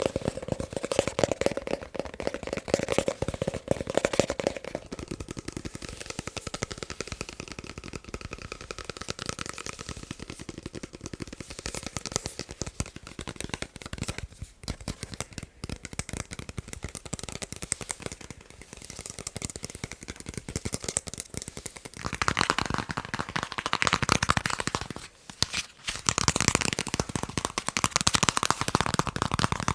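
Fast tapping with fingertips and fingernails on a series of different objects: a dense run of quick taps. The tone changes several times as the object changes, with a short pause near the end.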